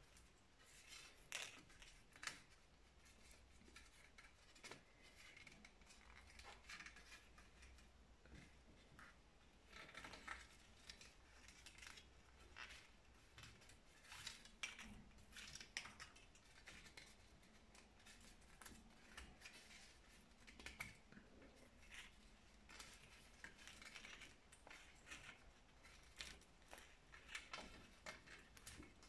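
Faint, irregular rustling and scratching of thin twine being wrapped and pulled tight around two wooden slats to lash them together, with hands brushing over the tablecloth.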